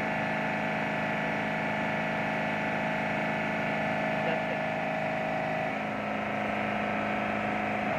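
Steady drone of running shipboard machinery, several unchanging hum tones over a low rumble.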